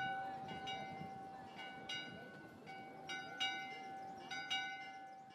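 Bells struck in pairs, each strike ringing on, over a held ringing tone; the sound grows fainter near the end.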